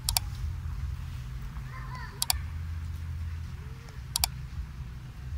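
Mouse-click sound effects of a subscribe-button overlay: three sharp double clicks about two seconds apart, over a steady low rumble of wind on the microphone, with a few faint high chirps.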